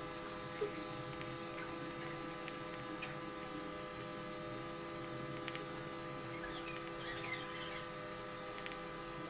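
Pencil scratching on paper in short strokes, a little busier later on, over a steady electrical hum.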